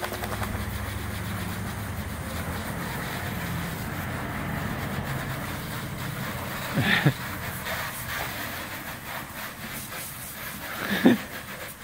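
A garden hose spraying water over a steady low engine rumble, which drops away about seven seconds in. Two short vocal sounds break in, one about seven seconds in and one near the end.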